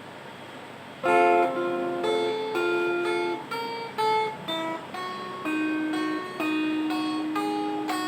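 Guitar being played to check its sound, mostly single picked notes and a few chords that ring on. A faint hiss comes first, and the playing starts about a second in.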